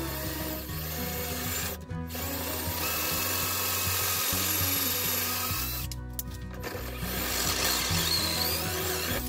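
Power drill boring dowel holes through a dowel jig into a wooden rocker, with brief breaks in the drilling, over background music.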